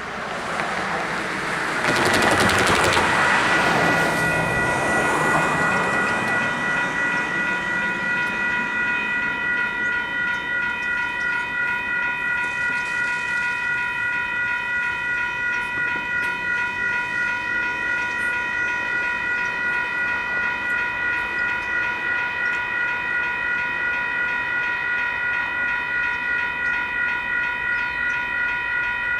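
Railroad crossing signals activating: WCH electronic crossing bells start ringing about two seconds in and keep up a steady, rapidly repeating electronic ding. A loud rush of passing noise comes over them in the first few seconds.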